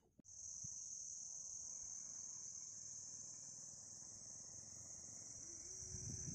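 Insects calling in a steady, unbroken high-pitched drone that starts suddenly just after the start, with a low rumble creeping in near the end.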